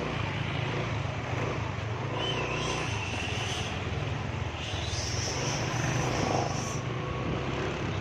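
Yamaha NMAX scooter's single-cylinder engine running steadily under way through its CVT, pulling smoothly on freshly fitted automatic clutch shoes without judder.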